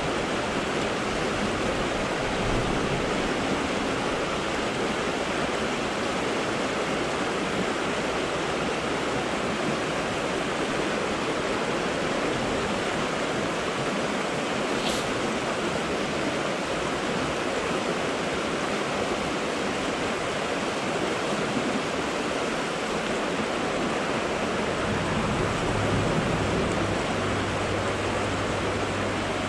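Creek water rushing over a rocky riffle: a steady, even rush of whitewater.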